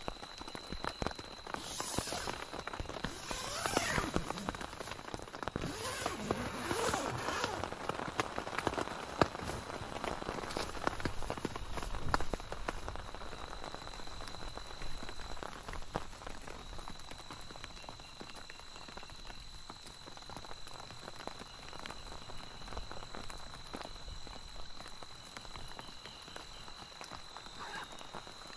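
Rain pattering on a tent's nylon fly and tarp: a steady patter of many small drops. There are a few louder swishes in the first seven seconds.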